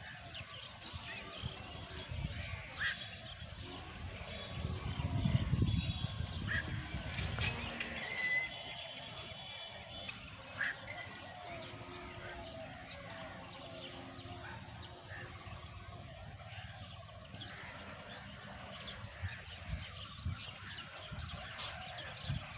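Outdoor ambience with scattered short bird calls, and a low rumble swelling from about four seconds in and fading by eight.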